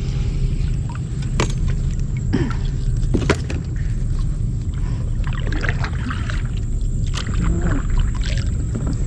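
Small boat on the water: a steady low rumble with scattered sharp knocks and splashes, the two loudest knocks about a second and a half and three seconds in.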